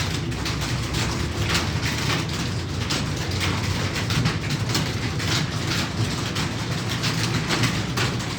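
Computer keyboard typing at speed: a quick, irregular run of key clicks over a steady low hum.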